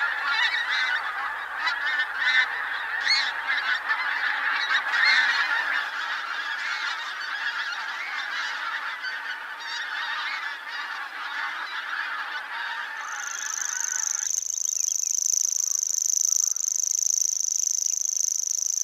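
A flock of pink-footed geese calling together, a dense clangor of overlapping honks that stops abruptly about three-quarters of the way through. Over the last few seconds a grasshopper warbler reels, a steady high-pitched trill held without a break.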